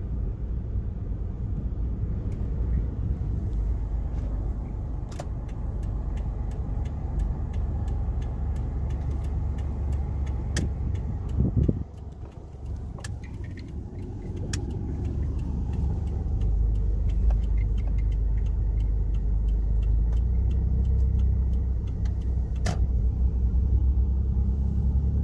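Car engine and road noise heard from inside the cabin, a low steady rumble. It drops away briefly a little before the middle, then builds again over a few seconds as the car pulls away and gathers speed.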